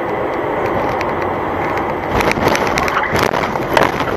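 Dash-cam audio of a car crash: steady road noise inside a moving car, then from about halfway a rapid series of loud bangs and crunches.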